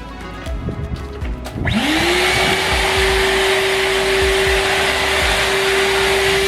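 Numatic Henry Wash wet-and-dry vacuum cleaner switched on a little under two seconds in: its motor whine rises quickly in pitch, then holds a steady whine over loud rushing air.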